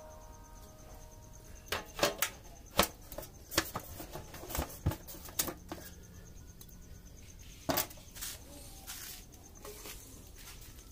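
Metal clanks and knocks of a lid being fitted and pressed onto a large aluminium cooking pot: about a dozen sharp, irregular strikes, with the tail of background music fading out at the start.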